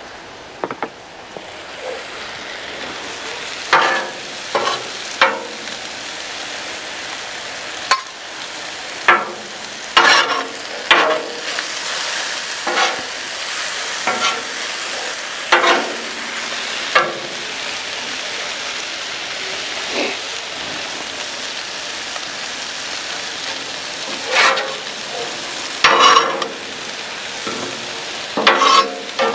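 Sliced mushrooms sizzling in olive oil on a Blackstone flat-top steel griddle. A metal spatula and scraper scrape and clank on the griddle top at irregular intervals as the mushrooms are tossed.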